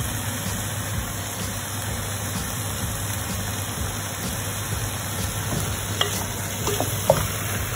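Pork with onions and bay leaves cooking in a hot stainless steel pot: a steady sizzling hiss under a low hum, with a few light clicks near the end.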